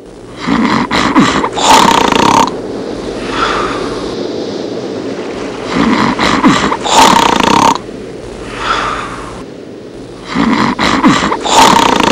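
A man snoring loudly in a slow, even rhythm. Each rough, rattling in-breath is followed by a softer, whistling breath out, with about three snores in all.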